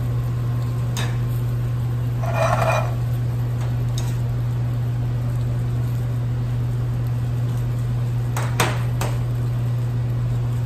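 Steady low hum of a kitchen, with a few light clicks and knocks of utensils and pans and a short rattling clatter about two seconds in.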